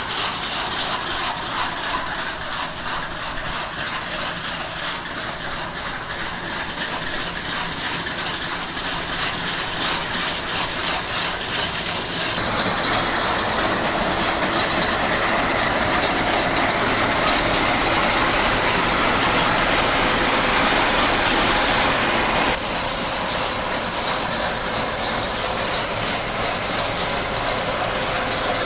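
Bizon Z056 combine harvester working under load while cutting wheat: its diesel engine and threshing machinery running with a dense mechanical rattle. Louder from about twelve seconds in, dropping suddenly about ten seconds later.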